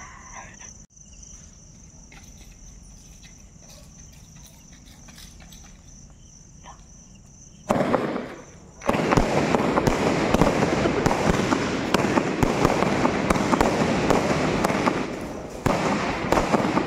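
A quiet stretch with a steady high insect trill. About eight seconds in, a consumer fireworks cake ignites with a short rush. A second later it starts firing rapid shots and aerial bursts, a dense run of crackling and popping that lasts to the end.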